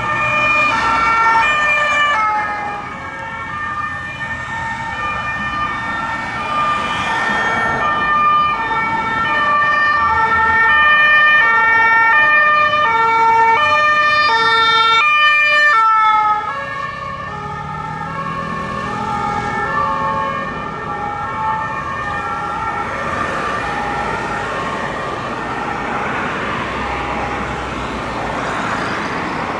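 Two-tone emergency siren of Geneva fire-service ambulances, alternating between a high and a low note over road traffic. Partway through it drops suddenly in loudness, and the low rumble of a passing vehicle rises under the weaker siren.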